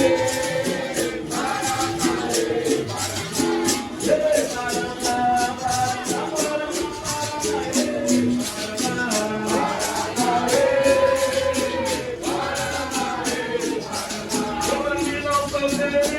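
Massed capoeira music: many berimbaus played together with caxixi rattles shaken in a steady, fast rhythm, under a group of voices singing a capoeira chorus.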